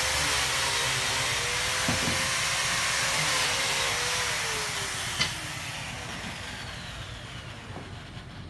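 A machine's steady rushing hiss with a wavering hum, fading away after a sharp click about five seconds in, with a faint falling whine as it dies down.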